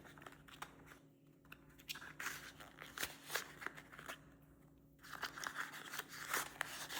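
Faint crinkling and clicking of small plastic items and packaging being handled, scattered at first and busier near the end.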